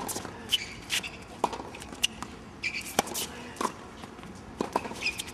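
Tennis rally on a hard court: sharp racket strikes on the ball, the loudest right at the start and another about three seconds in, with ball bounces and short squeaks of tennis shoes on the court in between.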